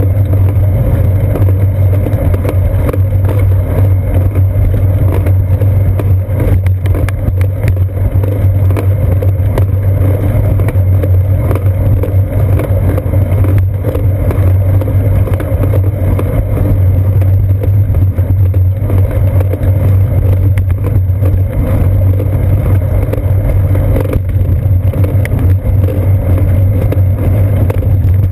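Steady, loud low drone of wind and road vibration at a seat-post-mounted GoPro Hero 2 as the bicycle rolls along, with a few light knocks scattered through it.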